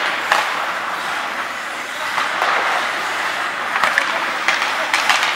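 Ice hockey skates scraping and gliding on the rink ice, with a few sharp clacks of sticks and puck.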